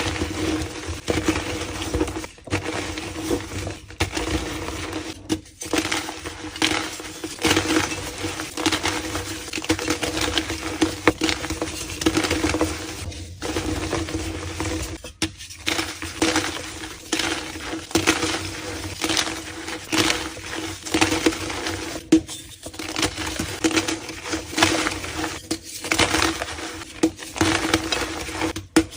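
Reformed gym chalk being crushed and crumbled: a dense run of crisp crunches and crackles, broken by a few short pauses.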